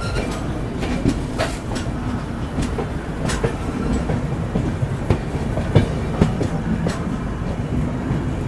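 Passenger express coaches rolling into a station: a steady low rumble of the wheels on the track, broken by irregular clicks and clacks as they pass over rail joints.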